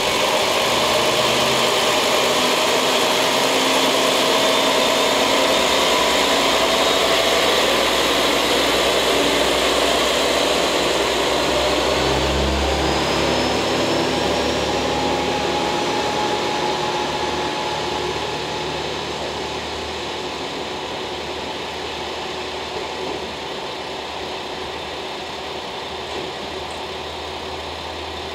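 Two-car KiHa 47 diesel railcar train pulling away under power, its diesel engines running hard with a whine that rises in pitch as it gathers speed. The sound fades as the train draws off into the distance.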